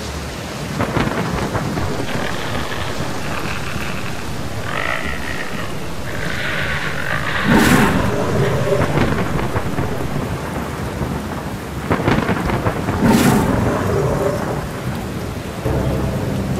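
Thunderstorm: steady rain with two loud thunderclaps, one about halfway through and another a few seconds later.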